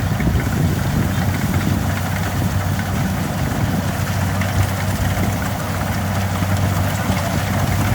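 Kubota DC70 Plus combine harvester's diesel engine running steadily, a constant low drone.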